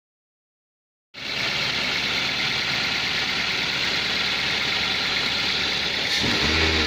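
Toyota Avanza's engine idling steadily, running on a freshly fitted battery after a slow-crank no-start caused by a dead battery. It cuts in suddenly about a second in, and near the end the pitch briefly rises and falls, like a light rev.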